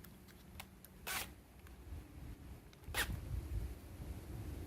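Cordless drill's keyless chuck being turned by hand to grip a drill bit: two short rasping ratchet sounds, about a second in and again near three seconds in.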